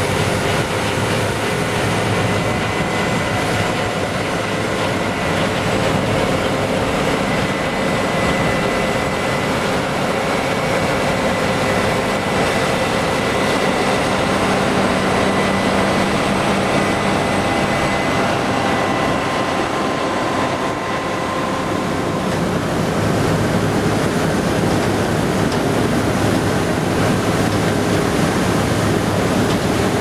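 Claas Lexion combine harvester working with a Shelbourne RSD stripper header: a loud, steady mechanical noise of the running machine, with a few faint steady whines in it. The sound shifts slightly about two-thirds of the way through.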